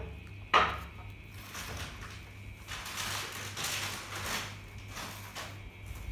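A dog biting into a raw apple: one sharp crunch about half a second in, then a run of short, noisy chewing crunches.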